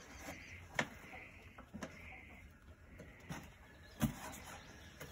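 Quiet handling noise as rat snakes are lowered into a plastic bucket: a few light knocks and scuffs, the sharpest about four seconds in.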